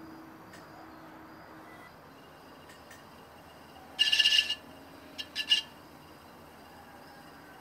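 Loud high chirping, one half-second call about four seconds in and three short chirps about a second later, over a faint steady scraping of a loop trimming tool cutting the foot of a leather-hard stoneware pot turning on a potter's wheel.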